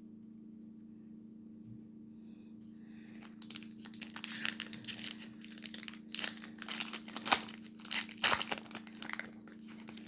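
A Topps baseball card pack wrapper being torn open and crinkled, in irregular bursts starting about three seconds in.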